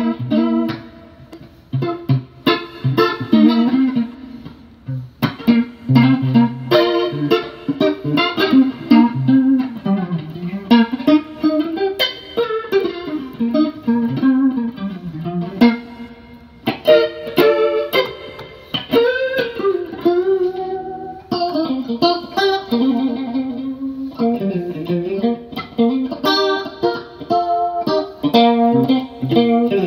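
Electric guitar playing chords and single-note phrases through a Danelectro Money Laundry rotary speaker emulator pedal, which gives it a Leslie-style spinning-speaker swirl. The phrases come with short breaks between them.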